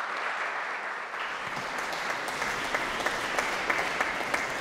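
Audience applauding with dense, steady clapping at the close of a lecture.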